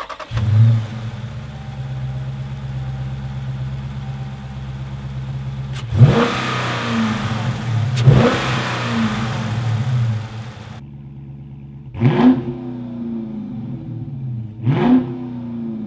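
A 2016 Dodge Charger R/T Scat Pack's naturally aspirated 6.4 L Hemi V8 fires up with a loud flare and settles to a steady idle. It is then revved four times, about 6, 8, 12 and 15 seconds in, each rev rising sharply and falling back to idle.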